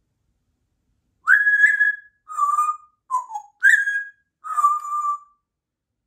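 Congo African grey parrot whistling five short notes that alternate high and low, starting about a second in; the third note slides downward.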